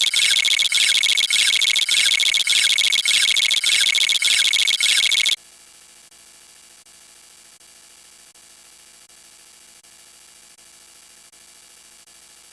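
A loud, shrill electronic buzzing tone pulsing about three times a second, which drops suddenly about five seconds in to a much quieter, fast-ticking high buzz.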